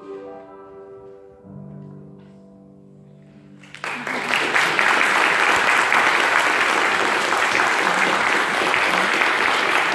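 The closing chords of a grand piano accompaniment ring and fade, with a low chord joining about a second and a half in. Just under four seconds in, the audience breaks into loud applause that carries on.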